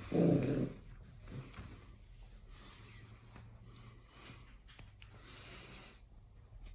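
Pembroke Welsh corgi puppy giving a short low grunt at the start, then breathing noisily in a few soft puffs while mouthing a rope-and-tennis-ball toy.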